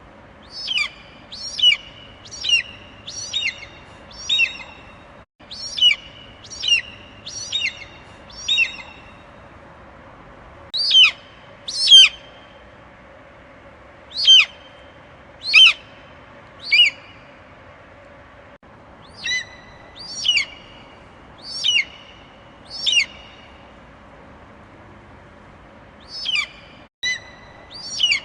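Eagle calling: a series of sharp, high, quickly falling cries, about one a second in bouts of two to five with short pauses between bouts, over a faint steady hum.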